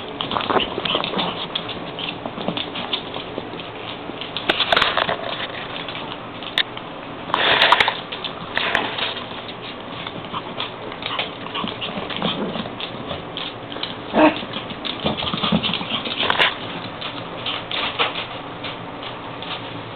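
Puppies and wolves play-fighting: continual scuffling and pattering with short, irregular animal outbursts, the loudest about seven seconds in.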